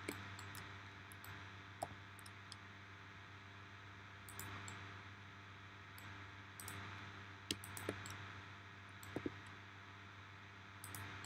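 Faint, scattered clicks of a computer mouse and keyboard, a few standing out, over a steady low hum.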